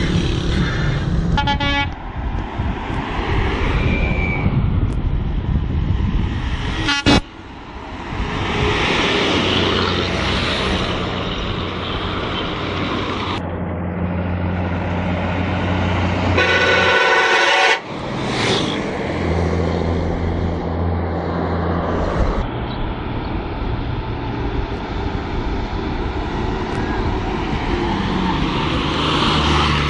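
Hino buses' horns tooting over a running diesel engine: a quick series of toots, a short toot, then a longer blast of over a second. Each ends in an abrupt cut.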